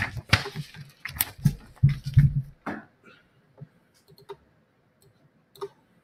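Computer keyboard and mouse clicking: a quick run of keystrokes and clicks in the first few seconds, then a few scattered clicks.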